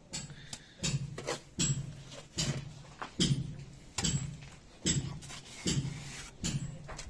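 A mason's trowel flicking wet cement plaster onto a brick wall, about nine splats in a steady rhythm of a little more than one a second.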